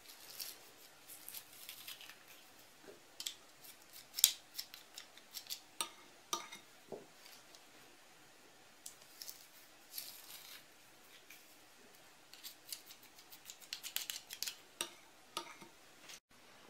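Metal garlic press crushing garlic cloves: irregular sharp clicks and short metallic scrapes from its hinged handles, with one loud click about four seconds in and a quicker run of clicks near the end.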